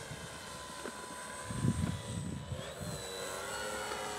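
Electric radio-controlled model plane flying past, its motor and propeller making a steady whine that rises in pitch a little before the middle. Brief low rumbling bumps about a second and a half in are the loudest moment.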